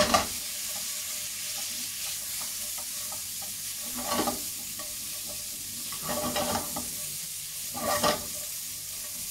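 Prawns and sliced onion sizzling steadily in hot oil in a non-stick frying pan, with a spatula stirring and scraping through them in short strokes every couple of seconds.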